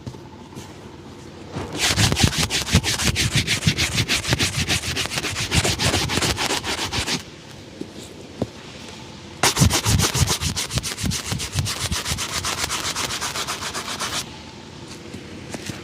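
Fast, rhythmic rubbing strokes on a shoe during a shoe shine, in two spells of about five seconds each with a short pause between.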